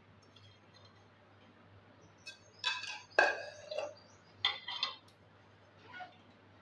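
Metal kitchen utensils and dishes clinking together in a few short clattering bursts, loudest about three seconds in, with a last faint clink near the end.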